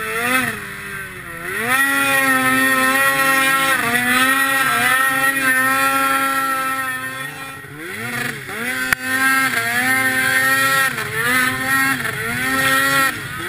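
Snowmobile engine running hard under throttle, its pitch wavering as the throttle is worked. Twice, about a second and a half in and again around eight seconds, it drops away and then revs back up.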